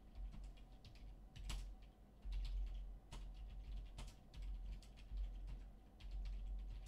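Irregular computer keyboard and mouse clicks, a few at a time with gaps between, over low bumps and rumble on the desk.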